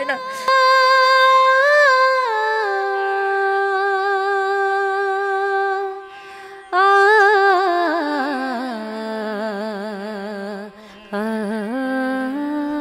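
Background music: a slow, wordless vocal melody of long held notes with vibrato, stepping between pitches. It pauses briefly about six seconds in.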